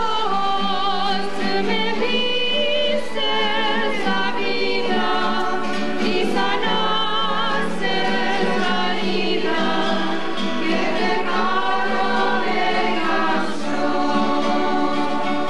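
Choir singing slow, held chords with a slight vibrato, as soundtrack music.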